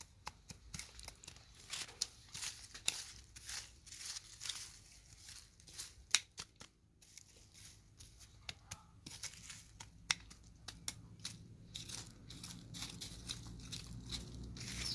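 Small long-handled garden trowel scraping and scratching through dry soil and leaf litter: a run of irregular crackling scrapes that thin out near the end.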